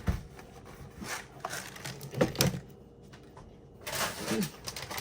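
Grocery packages being handled and set down on a table: scattered light knocks and rustles of packaging, with a quieter stretch about three seconds in.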